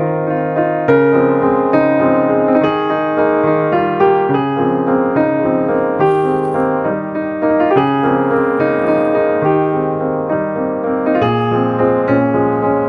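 Background piano music: a melody over changing chords, with a new note struck about every second.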